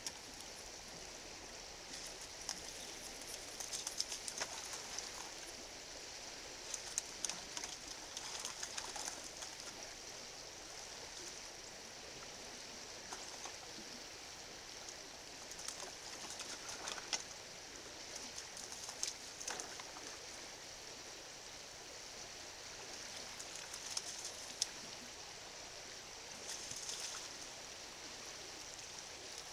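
Faint, steady hiss of a partly iced-over creek's running water, broken every few seconds by short spells of crackling ticks.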